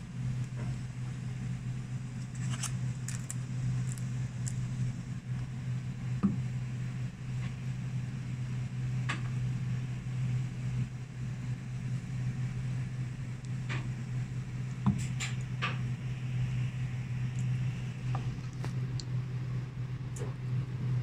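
A steady low hum of kitchen machinery, with scattered faint clicks and ticks from metal tweezers working firefly squid on a wooden cutting board.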